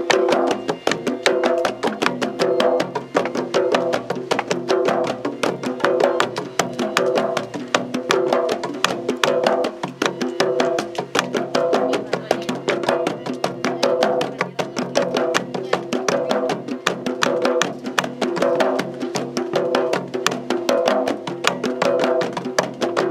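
Rhythmic percussion music: a fast, even run of wood-block-like strikes over steady low pitched notes.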